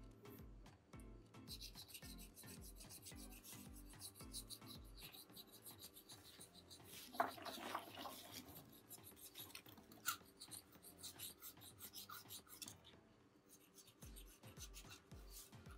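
Lumps of charcoal poured from a bag into a metal grill trough: a dense spell of rattling about seven seconds in, with scattered small clicks around it.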